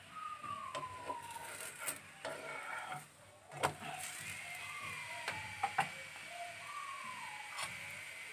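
A paratha frying in a nonstick pan, flipped with a spatula: the spatula scrapes and clicks against the pan about three and a half seconds in, then a few more sharp clicks, and a faint sizzle follows. Several short falling whistle-like tones sound in the background.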